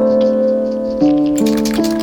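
Background music: sustained keyboard chords changing about once a second, with a few faint ticks about one and a half seconds in.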